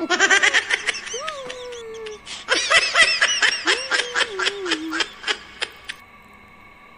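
High-pitched laughter in rapid giggling pulses: a short burst at the start and a longer one from about two and a half seconds in, then only a faint steady hum.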